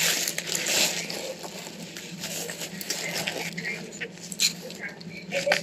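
Plastic packaging crinkling and rustling as a parcel's plastic mailer bag is handled and opened. It is a run of quick crackles, loudest at the start, over a steady low hum.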